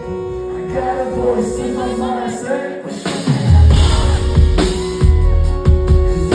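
A pop song with singing over a backing track; about three seconds in, drums and bass come in hard under the vocal.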